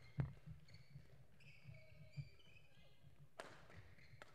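Badminton rally: several sharp racket strikes on the shuttlecock and thuds of footwork, the loudest thud just after the start, with short shoe squeaks on the court floor in the middle.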